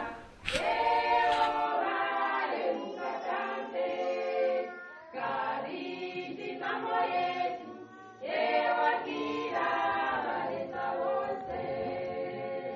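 A choir of mixed voices singing together in sustained phrases, with short breaks about five and eight seconds in.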